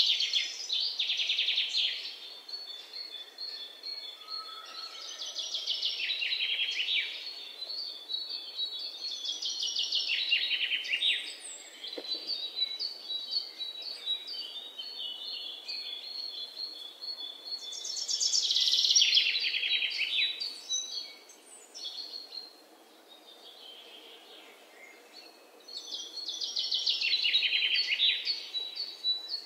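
Birds singing: bright, rapid trills of about two seconds each, repeated several times, with a run of thin high chirps between them.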